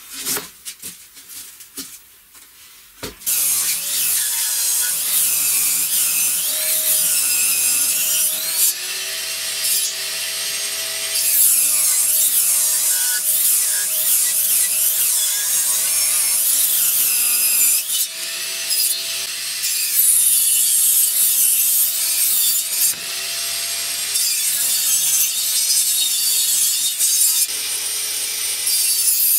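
A few light wooden knocks, then about three seconds in a benchtop table saw running and ripping wooden boards lengthwise along its fence, a steady cutting noise that briefly drops between passes.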